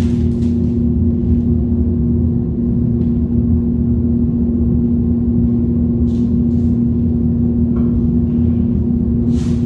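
Paint booth exhaust fan running with a steady low hum. A few faint rustles of masking tape and paper being peeled off a painted fender come about six seconds in and again near the end.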